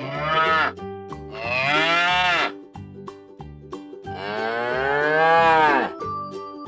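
A cow mooing three times: a short call, then a longer one, then the longest, each dropping in pitch at its end, over background music with a steady plucked beat.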